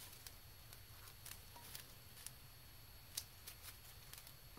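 Near silence with faint, scattered small clicks and taps, the loudest about three seconds in: gloved hands working a plastic fuel-injector harness connector and prying at its red locking tab, over a faint steady hum.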